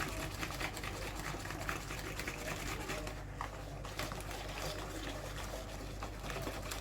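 A utensil stirring a liquid cheesecake filling in a bowl: a busy run of small irregular clicks and scrapes over a steady low hum.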